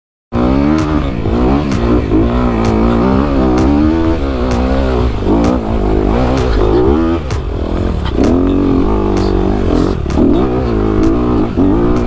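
Honda CRF250 dirt bike's single-cylinder four-stroke engine revving up and down under load on a steep rocky climb, starting abruptly just after the beginning, with scattered sharp clicks and knocks from the bike over the rocks.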